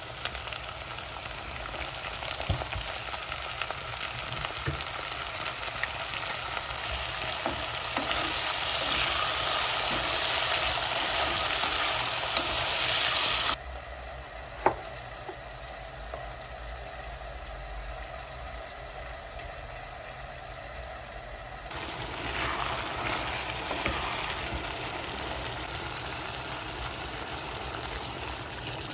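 Food frying in a pan with a steady sizzle. The sizzle swells and then drops off abruptly about halfway, with a single click shortly after, and picks up again near the end.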